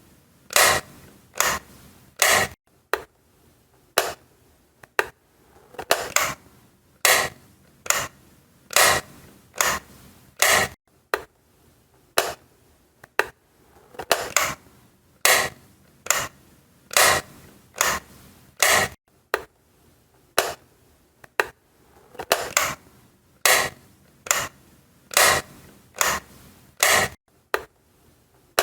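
Light switch clicked on and off over and over, a sharp click roughly every half second to second.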